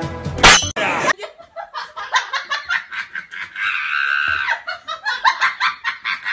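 A short, loud whoosh as the music cuts off, then a person laughing hard in quick repeated bursts, with one longer, higher-pitched stretch of laughter near the middle.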